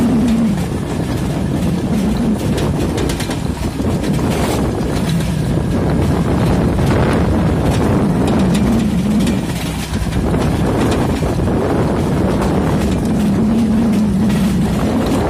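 Motorcycles running at riding speed with wind buffeting the microphone and scattered clattering from the rusty steel cart chassis being towed. The engine drone rises and falls in pitch several times as the throttle changes.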